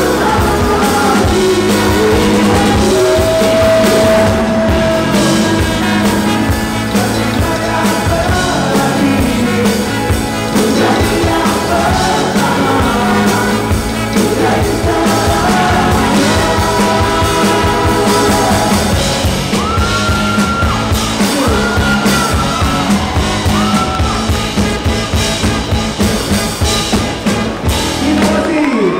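Live pop-jazz band playing a song with a steady drum and bass beat, a voice singing long held and gliding notes over it.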